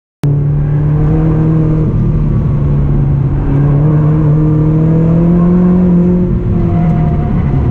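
Lotus Elise S220's supercharged four-cylinder engine with a Stage 3 Lotus exhaust, heard from inside the cabin, pulling hard on track. It starts abruptly after a moment of silence and holds a steady note that climbs slowly in pitch.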